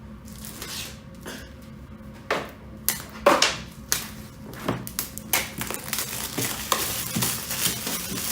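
A knife cutting at the box's packaging, with a run of sharp scratchy strokes from about two seconds in, then a denser rustle and crinkle of packing material.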